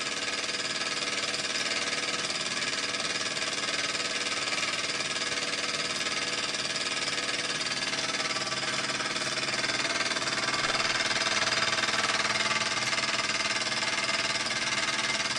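Small gas-fired model steam engine running fast and unloaded in a continuous rapid, even beat with the cart's drive wheels spinning freely off the ground, growing a little louder about two thirds of the way through. It is being run in on a low gas setting.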